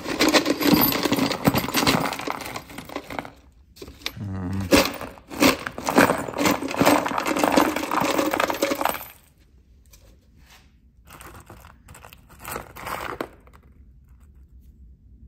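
Small steel bolts, washers and brackets clinking and rattling against each other as a hand rummages through a pile of rusty hardware. The clinking is dense for most of the first nine seconds, then thins to a few scattered clinks.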